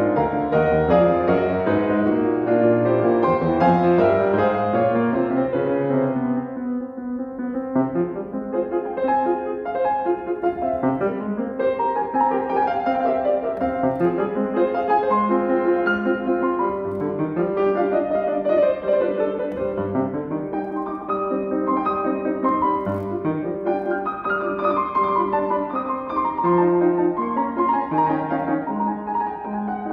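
Steinway grand piano played solo, a classical piece with a dense flow of notes, loudest in the first six seconds and a little softer from about seven seconds in.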